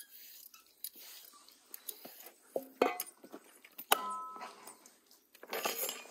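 Knife and dishes being handled during food preparation: a few sharp knocks and clinks, one about four seconds in ringing briefly, then a short scraping rustle near the end.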